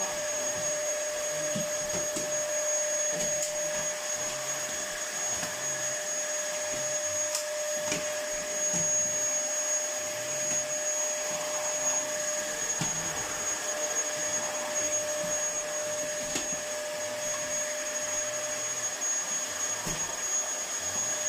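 Bagless Dyson cylinder vacuum cleaner running steadily: an even rushing hum with a steady high whine over it, and a few brief clicks.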